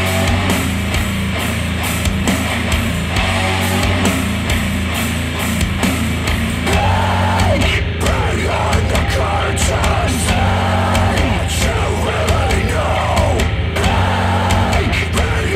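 Heavy rock music played back through Monitor Audio Bronze 100 bookshelf speakers driven by a Cambridge Audio CXA81 integrated amplifier. It has a steady, dense bass, and a line bending in pitch comes in about six or seven seconds in.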